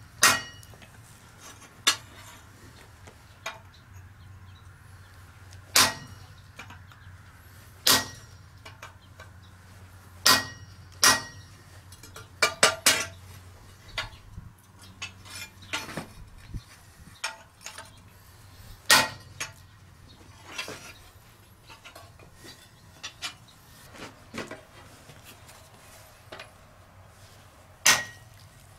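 Blacksmith's hand hammer striking a copper rivet set in a mild steel bar on the anvil: single sharp, ringing blows at irregular intervals, with a quick run of several blows a little before halfway.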